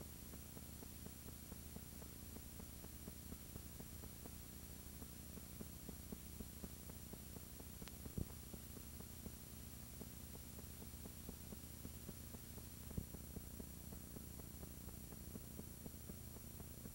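Steady low electrical hum and hiss from blank videotape playback, with faint crackling ticks and two sharper pops, about eight and thirteen seconds in.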